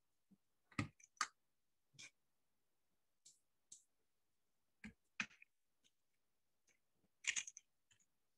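Scattered sharp clicks from a computer mouse and keyboard in use, about a dozen at irregular intervals with a quick run of clicks near the end, over near silence.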